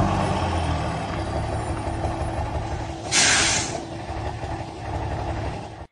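Semi-truck diesel engine idling with a fine rhythmic pulse, slowly fading, with a short sharp hiss of air brakes about three seconds in. It cuts off suddenly at the end.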